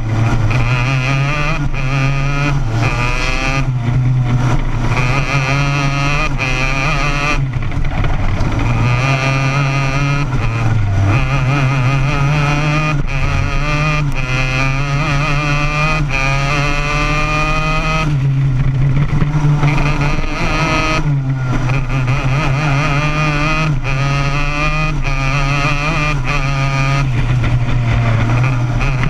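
Racing go-kart engine heard up close from on board, pitch climbing steadily through the straights and falling off sharply each time the driver lifts for a corner, several times over.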